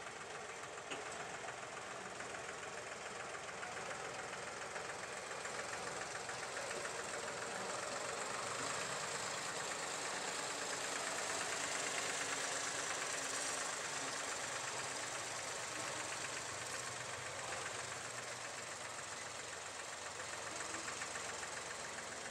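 Diesel tractor engine running steadily with a fast, even clatter, growing somewhat louder in the middle.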